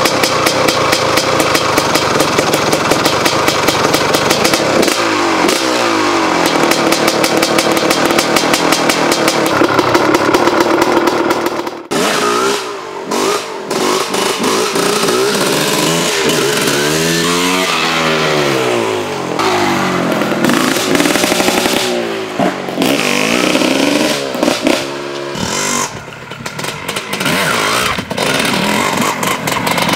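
Honda CR250's single-cylinder two-stroke engine being revved hard, a dense crackling buzz. About twelve seconds in it cuts to the bike riding past in wheelies, its note sweeping up and down in pitch as the rider works the throttle and gears, with short dips when the throttle shuts.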